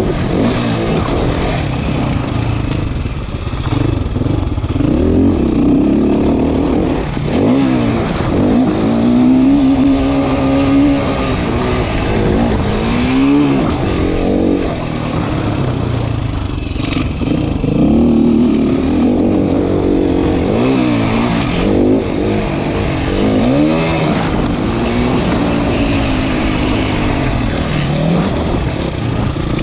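Motocross bike engine heard close up from the rider's position, revving up and dropping back again and again as the bike accelerates and backs off over the track's climbs and bumps.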